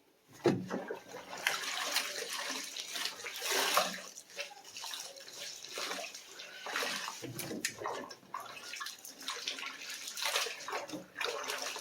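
Water splashing and dripping in irregular swishes as wet laundry is lifted and handled in the wash tub of a semi-automatic washing machine, starting about half a second in.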